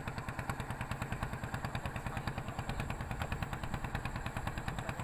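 Small boat engine running steadily with a fast, even chugging of about nine or ten beats a second.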